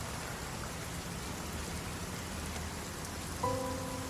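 Steady rain falling, an even hiss of rain on the ground. About three and a half seconds in, a held note of background music comes in over it.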